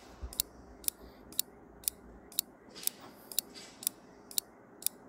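Countdown timer sound effect: sharp clock-like ticks, about two a second, marking the answer time.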